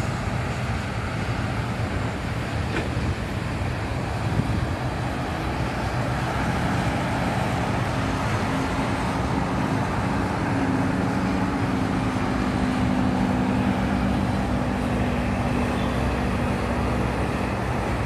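Steady roadside traffic noise from a busy main road. A heavy vehicle's engine drone comes up about six seconds in, is loudest in the middle and fades out near the end.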